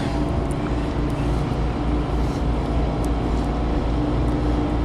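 Boat motor running steadily, a low drone with a constant hum.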